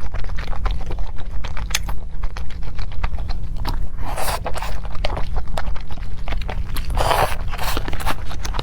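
Close-up eating sounds: food being bitten and chewed, with many small crunches and clicks and two louder bursts of chewing noise about four and seven seconds in, over a steady low hum.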